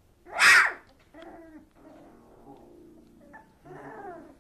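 Three-week-old dachshund puppies whimpering and squeaking, with one loud, shrill squeal about half a second in.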